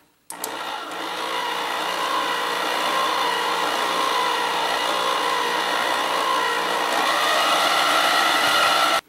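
Hamilton Beach stand mixer's motor running with a steady whine as its flat beater works dry ingredients into a chocolate cookie mixture in a stainless steel bowl. It starts a moment in and cuts off abruptly just before the end.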